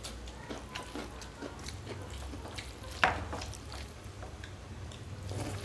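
Rice and dal being mixed and eaten by hand from steel plates: soft wet mixing sounds and small clicks, with one sharper click about three seconds in.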